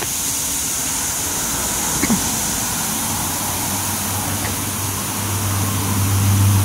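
Washworld High Velocity touchless car wash gantry spraying high-pressure water over an SUV: a steady hiss of spray, joined by a low motor hum that builds from about two-thirds of the way in.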